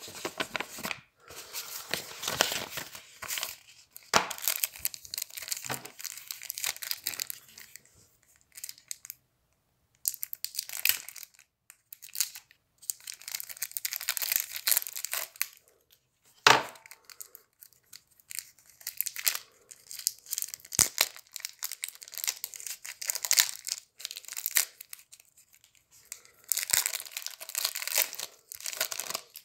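Paper and plastic card packaging rustling, crinkling and tearing in irregular bursts as a wrapped deck of trading cards is handled and opened, with a sharp snap partway through.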